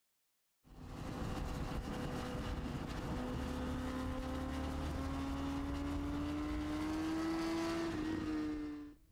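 BMW HP4 superbike's inline-four engine running at high revs, its pitch climbing slowly as the bike accelerates, then dipping slightly near the end. The sound starts abruptly about half a second in and cuts off just before the end.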